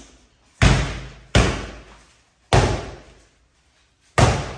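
Sledgehammers striking solid front doors: four heavy bangs, irregularly spaced, each dying away over about half a second. The doors are being beaten to test how secure they are.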